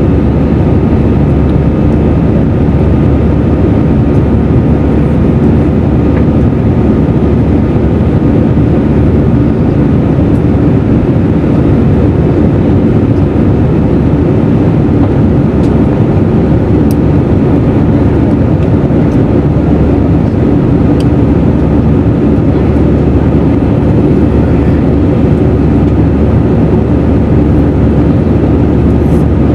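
Airbus A320 cabin noise in flight, heard inside the cabin next to the wing: a loud, steady rush of turbofan engine noise and airflow with a few faint steady tones running through it.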